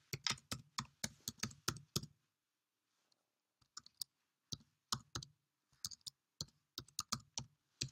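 Computer keyboard typing: a quick run of key clicks, a pause of over a second, then slower, scattered keystrokes.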